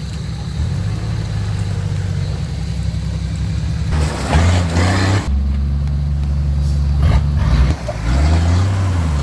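Off-road 4x4 engine running, with the throttle opened in surges that raise its pitch about four seconds in and again near the end.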